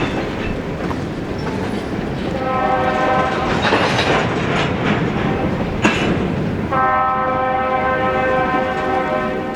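Diesel locomotive's air horn sounding over the running noise of a passing train: a blast ends just as it begins, a shorter blast comes about two seconds in, and a long blast starts about seven seconds in. Wheels and engine are heard throughout, with a sharp click about six seconds in.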